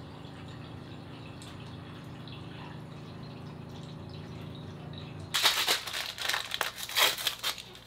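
Water running from a water dispenser's spout into a ceramic bowl, a steady pour that stops about five seconds in. Then loud crinkling and rustling.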